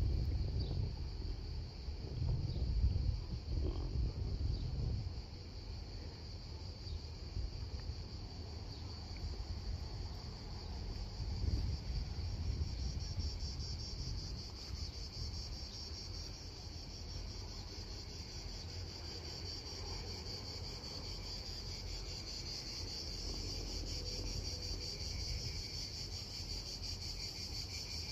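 Cicadas buzzing in a steady, high chorus that grows louder in the second half, with a low rumble in the first few seconds.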